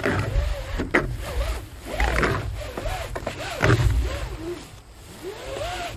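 Roofing underlayment being unrolled and pulled across OSB roof sheathing: crinkling, scraping sheet noise in a few sharp surges. Alongside it come some wavering tones that rise and fall.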